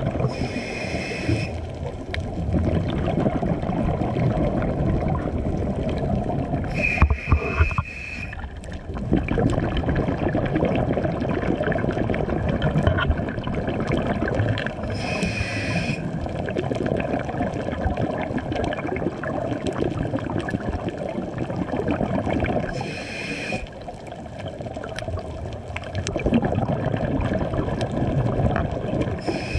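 Steady muffled underwater rumble heard through a camera's waterproof housing. A short hiss from a scuba regulator's breath cycle comes four times, about eight seconds apart.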